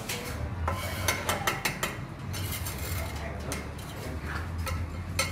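Bricklayer's steel trowel clinking and scraping against clay bricks and mortar in a run of irregular sharp taps, over a low steady hum.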